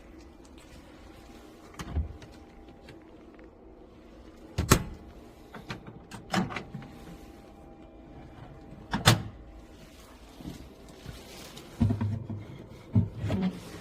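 Doors and fittings of a camper van clunking shut several times, with the loudest knocks near the middle and a cluster of clunks near the end, over a steady low hum.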